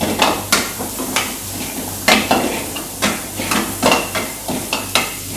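Steel ladle scraping and clinking against a metal frying pan as food is stirred, about two strokes a second at an uneven pace, over the steady sizzle of frying on a gas burner.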